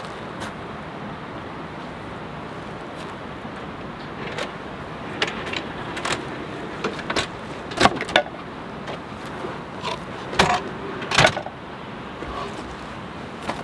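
Van rear door and storage drawers being handled: a series of knocks and clatters, loudest about eight seconds in and again about eleven seconds in, as drawers and a wooden cutting board slide out on metal ball-bearing drawer slides. Under it runs the steady rush of a river.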